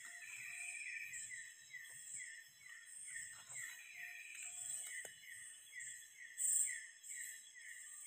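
Night chorus of tropical forest insects: several steady high-pitched trills, with a short chirp repeating about three times a second. One louder high buzz swells about two-thirds of the way through.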